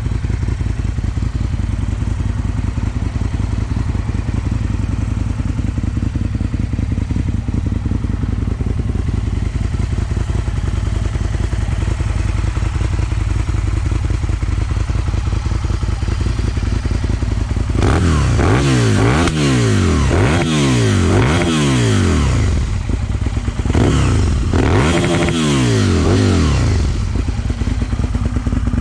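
Aprilia SL1000 Falco's V-twin through a GPR Furore exhaust with its dB killer fitted, idling steadily. About eighteen seconds in it is blipped through a string of quick throttle revs, each rising and falling, then settles back to idle near the end.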